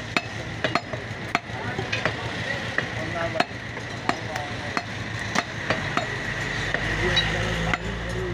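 A butcher's blade knocking against a wooden stump chopping block while cutting beef into chunks: sharp knocks roughly every half second to second. A low rumble swells near the end.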